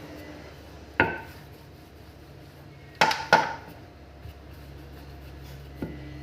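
Kitchenware knocking on a countertop: three sharp knocks with a short ring, one about a second in and two in quick succession about two seconds later.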